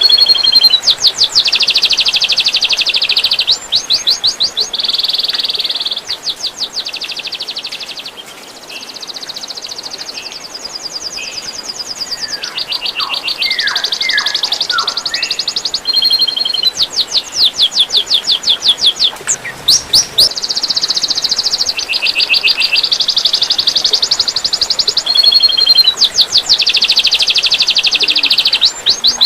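Songbird singing fast rapid-fire 'tembakan' trills, run after run of very quick repeated high notes, with a few lower downward-sliding whistles about halfway through. A faint trickle of water runs underneath.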